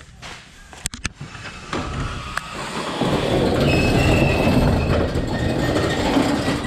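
Corrugated metal roll-up shop door being lifted open by hand. A few sharp clicks come first, then the slats rattle loudly as they roll up, with a brief high squeal about four seconds in.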